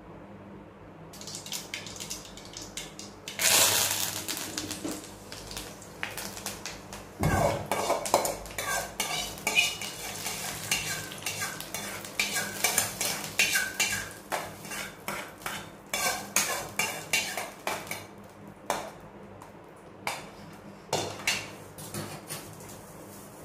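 A steel spoon scraping and clinking inside a steel tempering pan as the tempering is tipped out onto chutney: a loud clatter about three seconds in, a sharp knock a few seconds later, then a long run of quick scrapes and taps, with a few more near the end.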